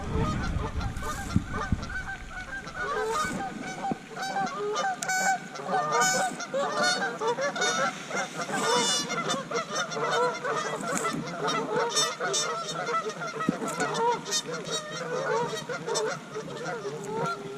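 A dense chorus of many short, overlapping honking calls from animals at the pond, going on without a break, with a few faint clicks.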